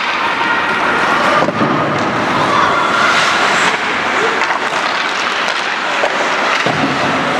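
Ice hockey play: skates scraping the ice and sticks and puck clattering in many short knocks, over a steady wash of rink noise.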